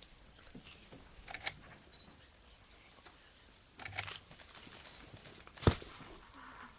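A few sharp cracks and crunches over a faint background, three standing out, the loudest a single crack a little before the end.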